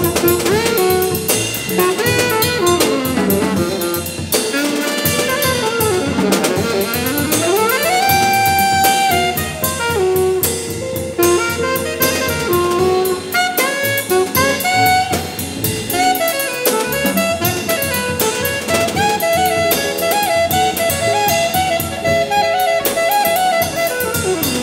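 Small jazz combo playing: alto saxophone lines with fast runs and glides over piano, electric guitar, upright bass and drum kit, with a trumpet joining partway through.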